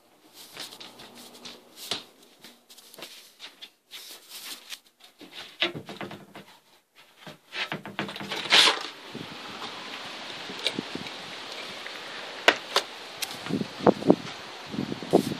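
Phone handling noise: scattered rustles and knocks. About eight and a half seconds in there is a brief loud rush, then a steady outdoor hiss of wind and rustling leaves with a few sharp clicks.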